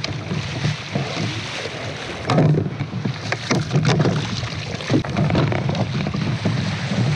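Wind on the microphone over surf and water splashing around a fishing kayak as it comes ashore through the shore break, with a few sharp splashes between about two and five seconds in.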